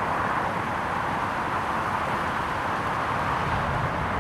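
Steady outdoor background rush with no distinct events, keeping an even level throughout.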